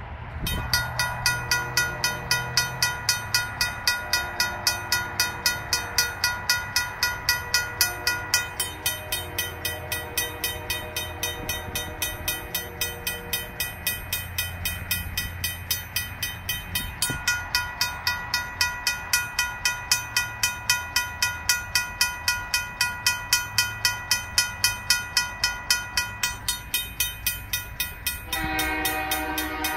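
RACO mechanical railroad crossing bell ringing in rapid, even strokes, about two and a half a second, as the crossing signals flash for an approaching train. A fainter train horn sounds in stretches in the first half, and near the end the locomotive's horn blows loud over the bell.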